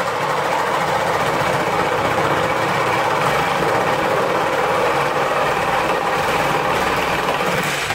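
A small electric motor, such as a power tool's, running steadily at an even pitch, then cutting off abruptly near the end.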